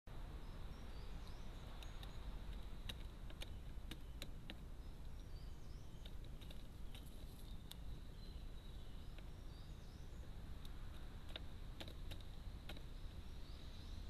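A crow's beak pecking and tapping at food in a feeding tub: irregular sharp clicks, some in quick clusters, with faint songbirds chirping in the background.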